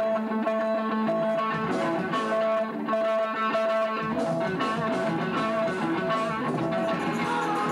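A live band playing, with electric guitar to the fore and a high note repeating about twice a second; the lower part fills out about four seconds in.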